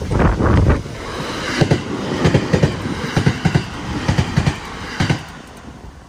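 JR West 225 series 5000-subseries four-car electric train running past over the level crossing, its wheels knocking over the rail joints in a quick irregular clatter. The knocks are loudest at first and thin out about five seconds in.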